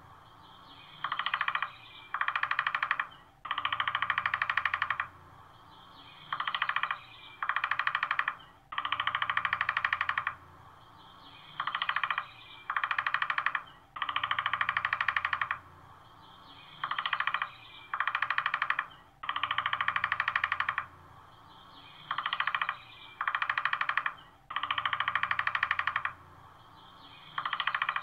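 Woodpecker sounds repeating in a loop. A rapid pulsed burst lasts about a second and a half and is followed by two shorter bursts, and the cycle comes round about every five seconds.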